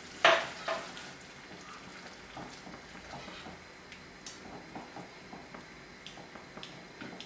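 A slotted spatula stirring and scraping thick curry in a nonstick pot, with light clicks and scrapes against the pot. A sharp knock about a quarter second in is the loudest sound, followed by a smaller one.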